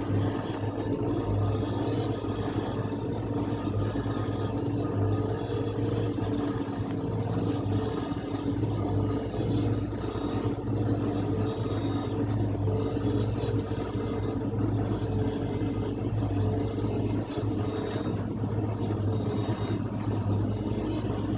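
Plasser 09-16 DYNA-CAT track tamping machine running, its power unit giving a steady mechanical drone with a constant low hum.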